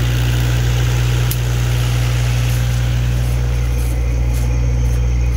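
10 kW diesel generator running steadily, an even low hum.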